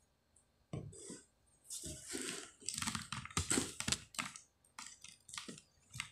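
Handling noise: a pan and its glass lid being turned over, shifted and set down on a cardboard box. It makes an irregular run of short clicks, knocks and rustles, starting about a second in.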